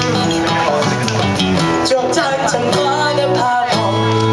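Live acoustic guitar strumming with a woman singing into a microphone, the voice holding and bending long notes over the chords.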